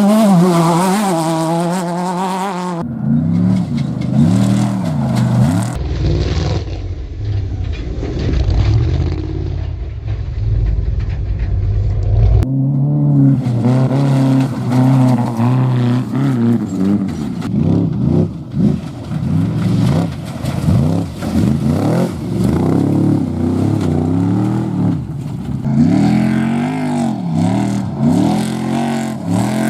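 Off-road race vehicle engines revving hard, their pitch rising and falling again and again as they drive. The sound changes abruptly about 3, 6 and 12 seconds in. Between about 6 and 12 seconds a heavy low rumble runs under the engines.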